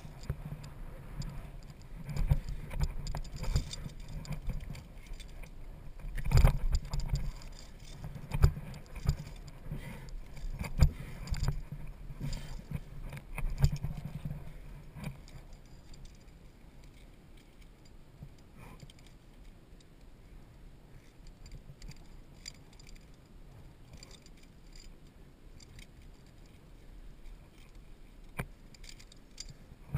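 Metal clinking and knocking of via ferrata gear: carabiners and lanyard against the steel safety cable and its anchors, with scuffs and thumps on rock. The clinks are frequent in the first half and fall off to occasional ones after about fifteen seconds.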